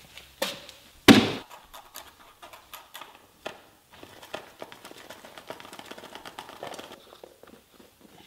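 A sharp knock, then a louder, heavier knock about a second in, followed by a run of small clicks and taps with light rustling.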